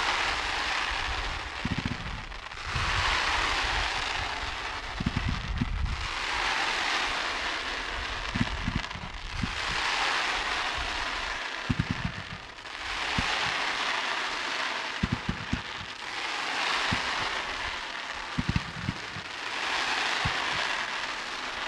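A fireworks battery firing volleys of rockets: a hissing, sizzling rush that swells and fades about every three seconds as each group rises, with short low thuds scattered underneath.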